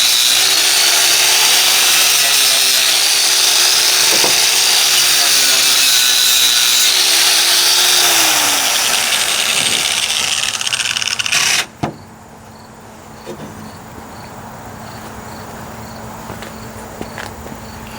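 Angle grinder grinding a steel weld, its motor pitch dipping and recovering under load, then winding down and cutting off about twelve seconds in. Afterwards a low steady hum and crickets chirping.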